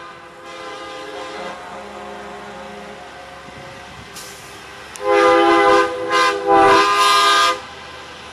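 Semi-truck air horn blown on a passing NASCAR hauler: a loud chord-like blast about five seconds in, lasting some two and a half seconds with a brief stutter in the middle. A fainter horn chord sounds in the first few seconds.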